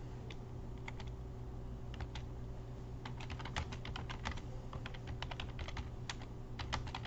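Typing on a computer keyboard: irregular key clicks, sparse at first and coming quicker from about three seconds in, over a steady low hum.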